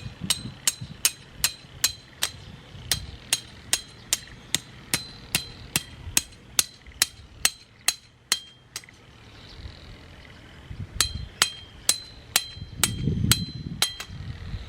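Hammer blows struck at a steady pace of about two to three a second, each with a short metallic ring. The blows stop for about two seconds past the middle, then resume for a few more.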